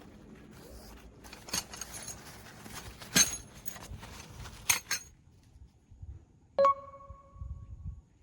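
Metal camping gear, tent pegs and hammer, clinking and jangling as it is handled, with several sharp clicks. Then one sharp metallic strike that rings with a clear tone for about a second.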